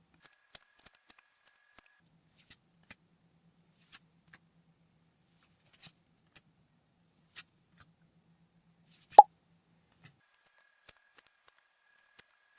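Trading cards being handled, giving faint scattered ticks and clicks. One short, sharp pop about nine seconds in is by far the loudest sound.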